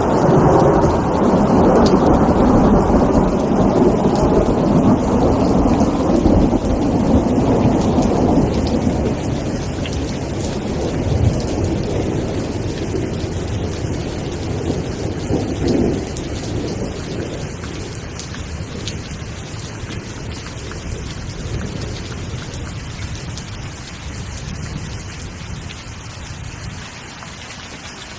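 Steady rain falling, with fine drop patter, under a long roll of thunder that slowly dies away over the first twenty seconds or so.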